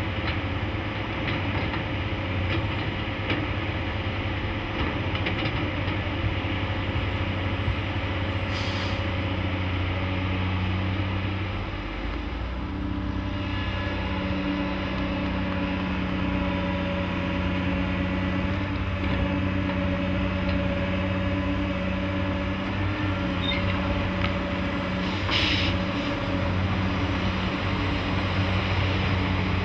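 Diesel engines of heavy construction machinery, an excavator and a Caterpillar crawler dozer, running steadily. A second engine note joins about ten seconds in, and there are two brief hisses, one near a third of the way through and one near the end.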